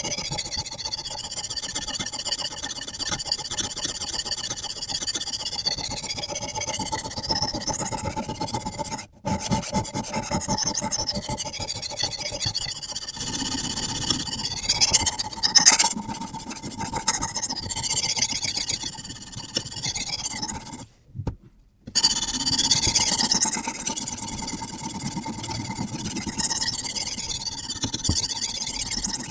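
Sharpening stone on a guided sharpening system rasping in repeated strokes along the edge of a carbon steel bushcraft knife blade, with a thin ringing from the blade. It cuts out abruptly twice, briefly about a third of the way in and for about a second around two-thirds of the way in.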